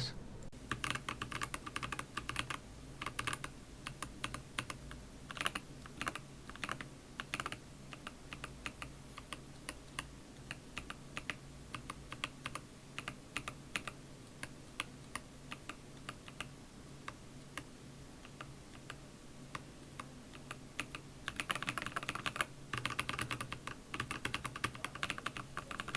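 Key presses on a mechanical keyboard fitted with Akko tactile switches, factory-lubed Lavender Purple and unlubed stock Cream Blue V3: a run of separate keystrokes, turning into a faster burst of typing near the end.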